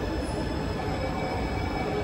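Kawasaki & CRRC Sifang C151B metro train standing at the platform with its doors open, its on-board equipment running. It makes a steady rumble and hum with several faint, steady whining tones and no clunks or door sounds.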